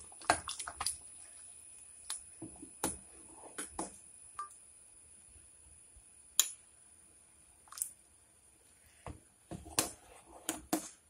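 Scattered sharp clinks and taps of a steel ladle knocking against a glass bowl and an aluminium pot as coconut milk is scraped out of the bowl and stirred into thick payasam; the taps come in clusters, with a busier run near the end.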